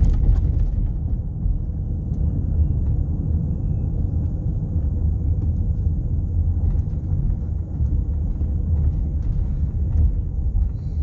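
Steady low rumble of tyre and road noise inside a moving car's cabin, the tyres rolling over a road covered in light snow and ice.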